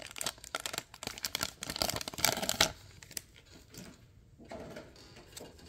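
Plastic wrapper of a torn-open football trading card pack crinkling and tearing as the cards are pulled out. A run of quick crackles for about two and a half seconds, then only faint handling.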